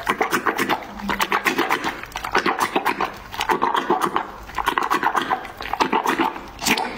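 Wet squelching of cleansing foam being rubbed over facial skin by hands, in quick, rhythmic strokes, several a second.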